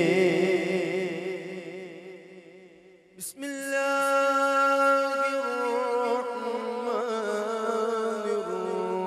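Unaccompanied male naat singing: a long wavering held note fades away over the first few seconds. A short click comes about three seconds in, then a steady, sustained hummed vocal drone that runs on with only slight shifts in pitch.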